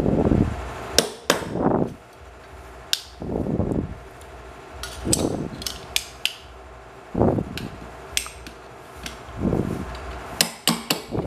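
Metal parts of an electric fan motor being handled and set down on a workbench: irregular sharp clicks and knocks, with short scuffing noises between them.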